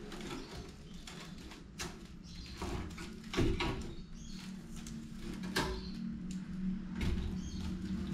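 Woven rattan basket backpack being handled and turned over by hand: scattered creaks, rustles and knocks of the rattan weave and braided rattan straps, the loudest knock about halfway through. A low steady hum lies underneath.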